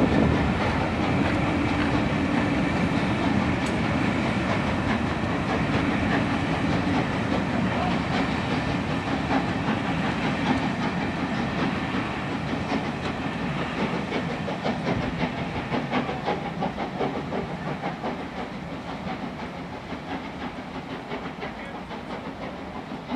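Steam-hauled passenger train behind LMS Royal Scot 46115 Scots Guardsman rolling past, its coaches' wheels clicking over rail joints and pointwork. The sound slowly fades as the train draws away.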